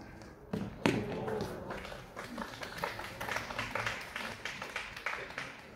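A tennis ball struck once, sharply, about a second in, with a short voice call just after, then scattered applause from a small crowd that runs on until near the end.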